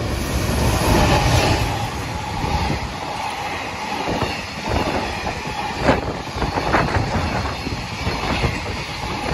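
A JR Freight EF210 electric locomotive runs past, loudest about a second in, followed by its container flatcars rolling by. The wagon wheels clack sharply over the rail joints several times.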